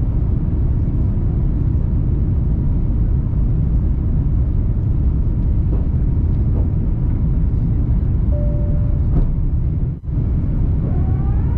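Steady low rumble of airliner cabin noise in an Airbus A350-900 climbing out after takeoff: the Rolls-Royce Trent XWB engines at climb thrust and the airflow over the fuselage. The sound drops out briefly about ten seconds in, and a tone starts rising near the end.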